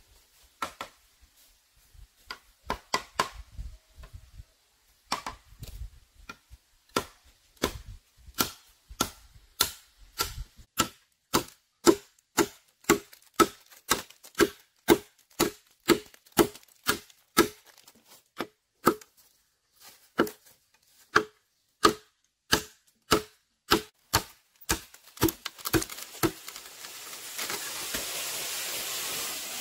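A blade chopping into bamboo: sharp knocks with a hollow, pitched ring, irregular at first, then a steady run of about two strokes a second with one short pause. Near the end the chopping stops and a steady rushing, hissing noise takes over.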